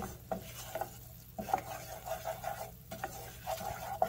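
A wooden slotted spatula stirring a bubbling butter-and-flour roux in a saucepan, with repeated scraping strokes over a light sizzle.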